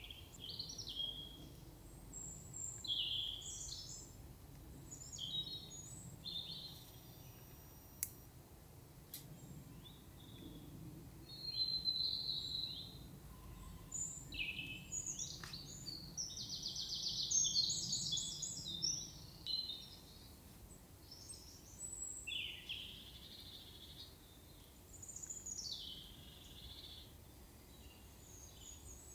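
Woodland songbirds calling: short high chirps and brief song phrases come and go, with a louder rapid trilling run a little past halfway, over a faint low rumble.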